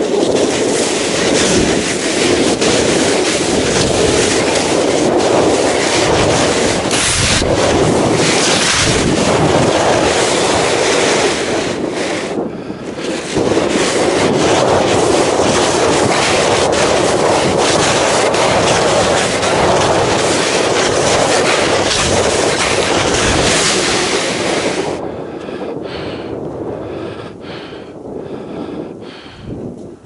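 Loud, steady rush of wind on the microphone, breaking off briefly about twelve seconds in. Near the end it drops away, leaving a quieter, regular crunching of steps in snow, about two a second.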